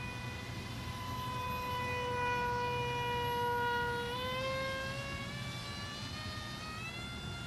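Motor and propeller of a small foam RC plane in flight, giving a steady whine that sags slowly in pitch and then rises from about four seconds in as the plane speeds up or comes nearer.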